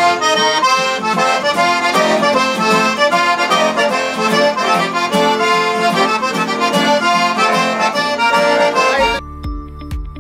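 Background music led by an accordion, loud and busy. About nine seconds in it cuts to different music with a steady low beat and chiming notes.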